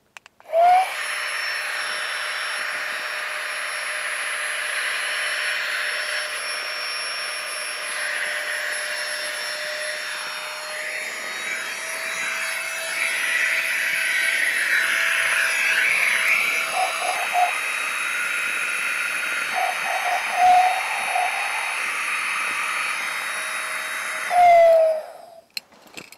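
Small electric air pump running steadily with a whirring hum, inflating camp bedding. Its pitch rises as it starts, about half a second in, and falls as it shuts off near the end.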